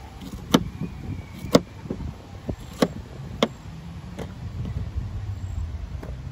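Four sharp knocks in the first half, with a fainter one after, as a knife cuts a peeled pineapple on a plastic folding table and pieces go into a plastic tub. From about the middle, a vehicle engine hums low and steady underneath.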